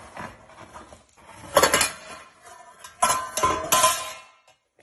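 A caracal's head and paws knocking a stainless steel saucepan and its lid about as it eats from the pot. The metal clatters in two bouts, about a second and a half in and again from about three seconds in, and the later bout has a ringing note.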